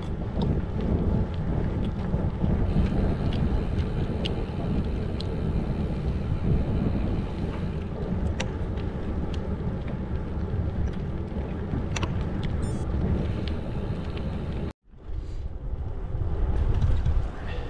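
Wind rushing and buffeting over the microphone of a camera riding on a moving bicycle, a steady low rumble with a few faint clicks. The sound cuts out for an instant near the end, then the same wind noise resumes.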